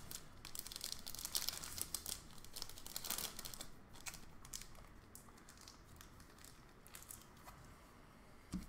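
Clear plastic card sleeve crinkling and crackling as a trading card is handled, a busy run of crisp crackles that thins out about halfway.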